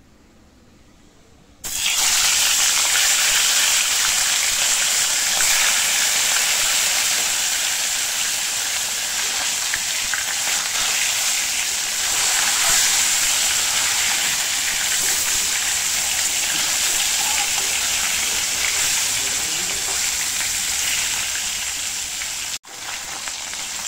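Turmeric-and-salt-marinated fish pieces frying in hot oil in a kadai: a loud, steady sizzle that starts suddenly about two seconds in. It breaks off for an instant near the end and carries on a little quieter.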